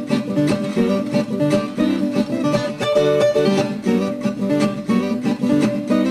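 Viola caipira, a ten-string Brazilian guitar with paired steel strings, played solo: a picked ponteado melody in quick runs of plucked notes and double stops.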